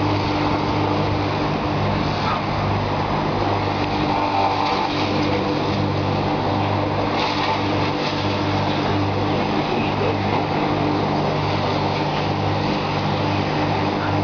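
An engine running steadily at constant speed, a loud, even low hum.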